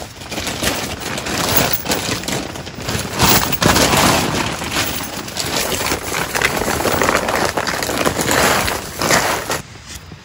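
A black plastic tarp being unfolded and dragged across a tent floor of dry leaves, making a loud, crinkling rustle that stops near the end.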